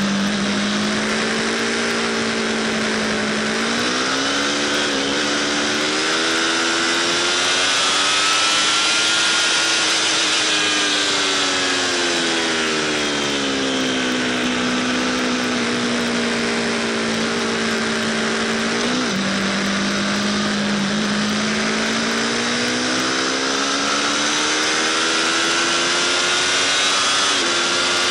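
Aprilia RSV4 Factory's V4 engine running at speed on track, heard from the rider's seat with wind noise. The engine note rises and falls slowly, with a few quick dips in pitch.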